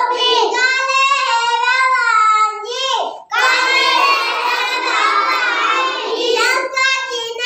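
A young child singing a devotional bhajan solo and unaccompanied, in a high voice with long held notes, pausing for breath about three seconds in.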